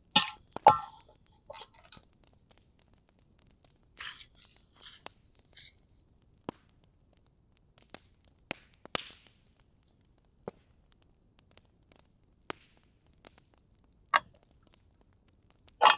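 Small handling noises: scattered light clicks and taps, with a crinkling, tearing rustle between about four and six seconds in.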